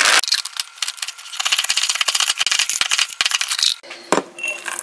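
Hand-operated nut chopper chopping walnuts: a rapid clatter of clicks and rattles. Near the end it gives way to a spoon clinking in a stainless steel mixing bowl.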